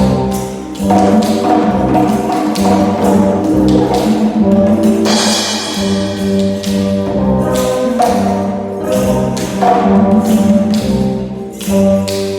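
Percussion ensemble music: repeated tambourine-like shakes and wood-block taps over steady held notes, with a bright shimmering swell about five seconds in.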